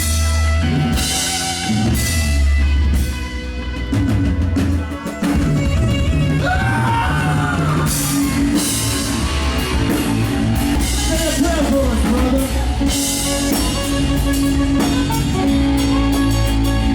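Live rock band playing loud, steady music with a drum kit, heavy low bass notes and electric guitar.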